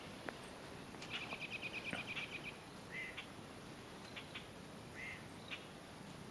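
A songbird's rapid chattering trill of short high notes, about ten a second for a second and a half, followed by a few single short chirps spaced a second or two apart.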